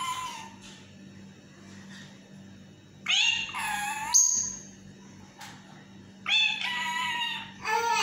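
Yellow pet parrot calling in its cage: three high, bending calls, about three seconds in, just after six seconds, and again near the end.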